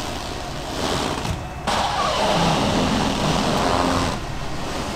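Jeep Cherokee's newly installed junkyard engine running at low speed as the SUV creeps forward out of the garage bay. It gets somewhat louder from about a second and a half in until about four seconds.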